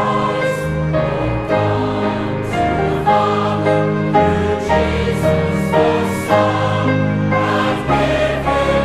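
Choral music: a choir singing sustained notes in a gospel or hymn style.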